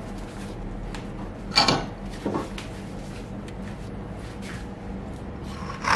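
Two short scrapes on wood, about one and a half and two and a quarter seconds in, as a wooden block is handled in a bench vise, over a steady low hum.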